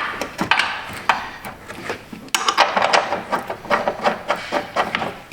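Irregular clicks, knocks and scraping of metal parts as an engine is eased down on a jack and lined up onto its motor mount.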